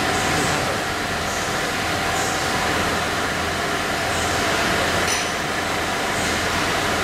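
Mask making machine running steadily: an even mechanical noise with a constant mid-pitched hum, and a light click about five seconds in.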